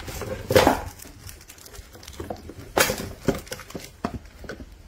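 Handling noise as a heat gun and its rubber power cord are moved about: irregular rustles and knocks, the loudest about half a second in and again near three seconds in.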